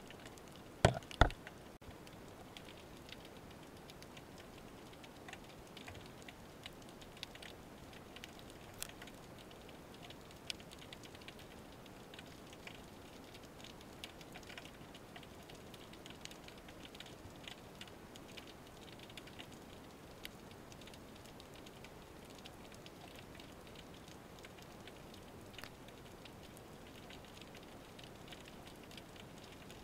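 Underwater ambience heard through the camera housing: a steady patter of faint crackling clicks, with two sharp knocks about a second in.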